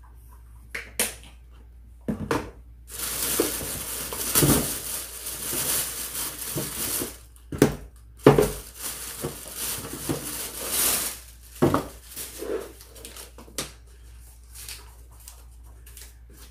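A plastic carrier bag rustling and crinkling as a takeout chicken order is unpacked, with several sharp knocks of boxes and containers being set down on a table; the loudest knock comes about eight seconds in.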